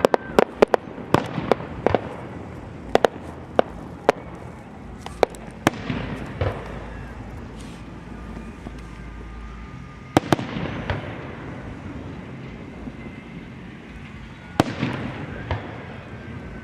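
Aerial fireworks going off: a quick run of sharp bangs and crackles in the first few seconds, then two louder single booms about ten and fifteen seconds in, each followed by a rumbling echo.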